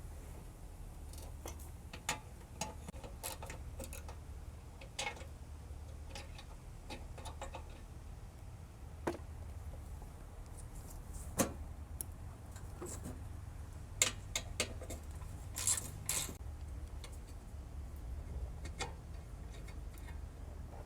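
Scattered light metallic clicks, ticks and clinks of hand tools working T40 Torx screws loose, with a few sharper clicks and two brief scraping rustles over a low steady hum.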